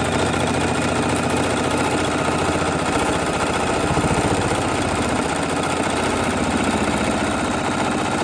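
Electric sewing machine running fast without a pause, its needle stitching a seam through two layers of cotton fabric in a fine, even, rapid rhythm.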